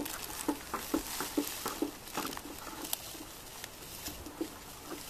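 Magnesium sulfate crystals pouring from a plastic bag into a plastic cup: a patter of small ticks, thickest in the first two seconds and thinning out after.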